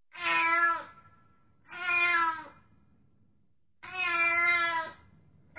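A cat meowing three times, each meow drawn out for about a second, with short pauses between them.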